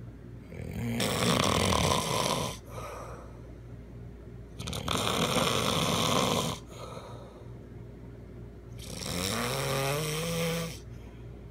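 A man snoring very loudly, with three long snores about four seconds apart and quieter stretches between them; the last snore begins with a rising pitched tone.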